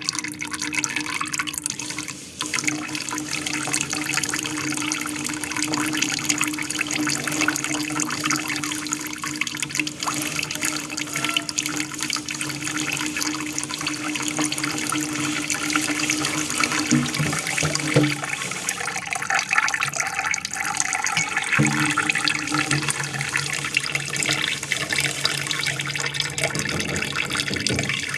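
Water splashing and trickling steadily down a small aquarium waterfall, with a low steady hum underneath that drops in pitch about two-thirds of the way through.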